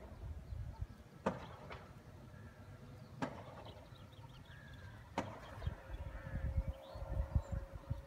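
Outdoor ambience: a low, uneven rumble with soft bumps, a few sharp clicks about two seconds apart, and faint short bird chirps. A thin steady tone joins about five seconds in.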